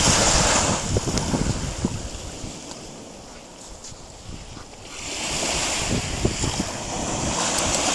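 Small sea waves washing onto the beach, swelling near the start and again from about five seconds in, with wind buffeting the microphone.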